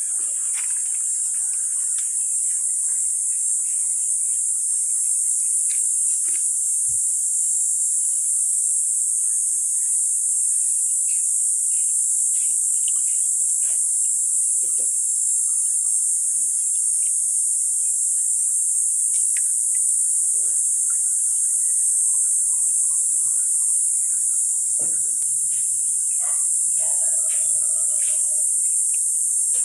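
Steady, high-pitched chorus of insects, the continuous outdoor drone of crickets or cicadas, with faint scattered clicks and rustles beneath it.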